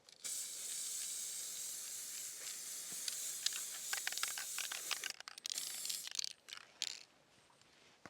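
Aerosol spray paint can spraying: one long steady hiss of about five seconds, then several short bursts.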